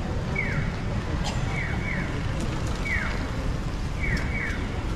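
Japanese pedestrian crossing signal giving its bird-chirp 'piyo' tones. One short falling chirp alternates with a quick double chirp about every 1.2 seconds, the sign that the walk light is green. Underneath is a steady low rumble of rain and street noise.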